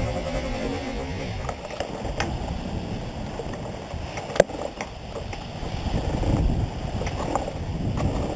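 Wind rushing and buffeting over a masthead camera on a Class 40 sailing yacht running under spinnaker, with the wash of water along the hull, broken by scattered sharp clicks and knocks, the loudest about four and a half seconds in.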